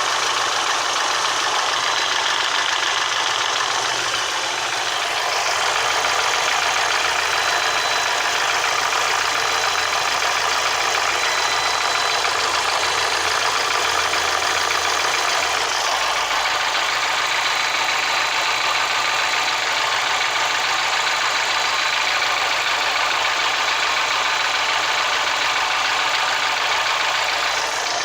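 Lada Priora's VAZ-21126 1.6-litre 16-valve four-cylinder engine idling steadily with a knock. The owner cannot tell whether it is piston knock or a noisy hydraulic lash adjuster.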